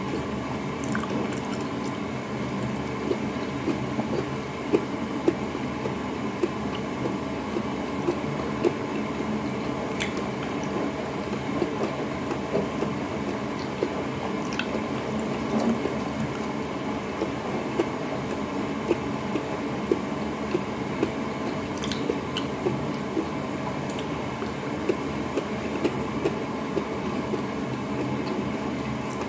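Close-up wet chewing of pinakbet, a Filipino vegetable stew: steady squishy mouth sounds, with occasional sharp clicks.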